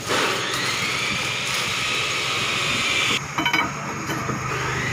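A steady rushing hiss that stops abruptly about three seconds in. It is followed by a few light metallic clinks as the excavator's hydraulic control valve block is levered and shifted in its lifting sling.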